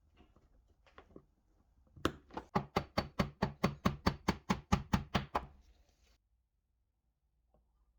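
A rapid, even series of sharp knocks, about seventeen at roughly five a second, lasting about three and a half seconds.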